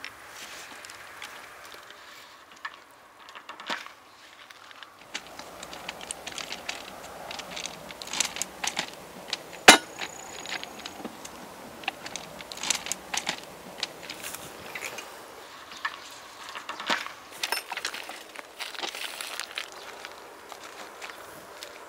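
Scattered knocks, clanks and rattles of a bamboo train being taken apart by hand: steel wheel axles lifted off the rails and the engine lifted off the bamboo slat platform, with footsteps on the track ballast. One sharp knock stands out about ten seconds in.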